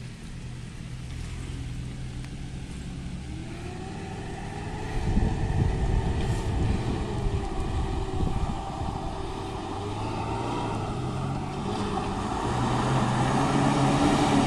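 Mitsubishi L300 pickup's engine pulling up a steep, slippery rocky climb, its revs rising and falling and the sound growing louder as it comes closer.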